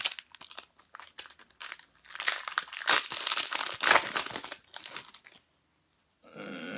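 A baseball card pack's wrapper being handled and torn open: a run of uneven crinkling bursts that stops about five seconds in.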